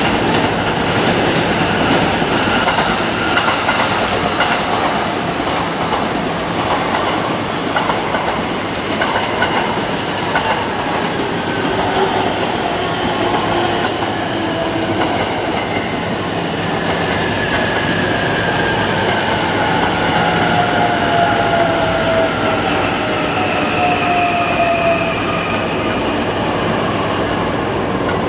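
JR East Joban Line electric commuter train running past, with rail clicks in the first half and whining tones that fall slowly in pitch later on.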